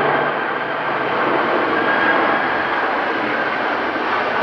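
Boeing 767-300 freighter's twin jet engines passing on final approach with the landing gear down: a steady jet rumble and hiss with a faint steady whine above it.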